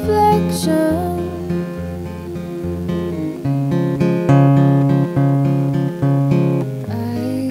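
Acoustic guitar with a capo, picked in a steady chordal accompaniment with chord changes about every second. Near the start a woman's voice sings the end of a line ("reflection").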